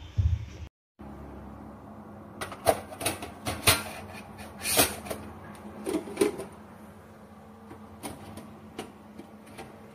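Plastic tiers and lid of an electric food steamer knocking and clicking as they are handled: a flurry of sharp knocks through the middle and a few lighter clicks near the end, over a steady low hum. There is a low thump at the very start.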